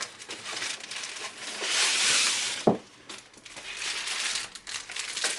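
Plastic packaging crinkling and rustling as a light stand is unwrapped by hand, with one sharp knock a little past halfway.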